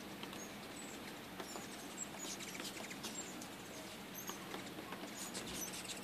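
Ruby-throated hummingbirds making many short, high, squeaky chip calls while they feed and chase at the feeders, some coming in quick runs.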